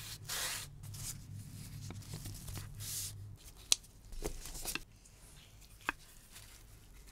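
Vegetable-tanned leather and hand tools being worked at a bench: a scraping, rasping sound for about three and a half seconds, then a few light clicks and taps.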